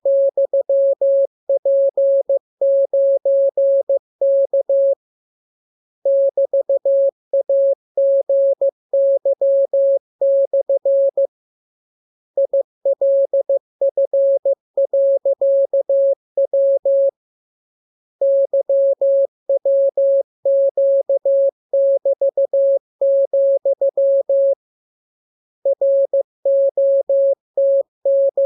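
Morse code practice tone: a single mid-pitched beep keyed on and off in dots and dashes, sent in groups of characters about five seconds long with a pause of about a second between groups.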